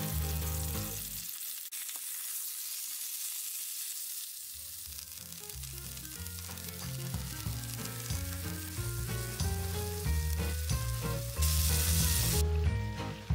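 Beef steak sizzling as it sears in hot oil in a frying pan, a steady spitting hiss, under light background music. Near the end the sizzle briefly flares louder as a piece of butter goes into the hot pan.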